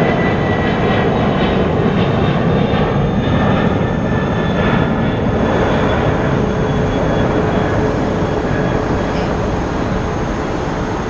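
Boeing 767-300 freighter's twin jet engines climbing out after takeoff: a steady, loud rumble with a thin steady whine over it, easing off slightly near the end as the aircraft pulls away.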